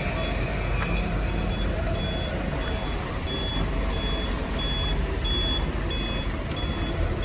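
Cargo truck's reversing alarm beeping about one and a half times a second over the low, steady rumble of its engine as the truck manoeuvres slowly.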